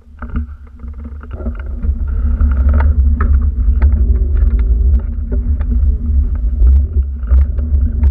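Heavy low rumble of wind buffeting the action camera's microphone as it moves, with many scattered clicks and rattles. It starts suddenly and grows louder over the first two seconds.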